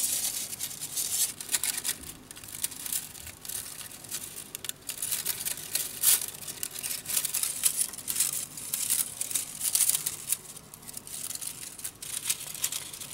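Thin bamboo splints rustling, scraping and clicking against one another as they are woven by hand and pushed tight into a conical basket weave: an irregular run of quick, dry crackles.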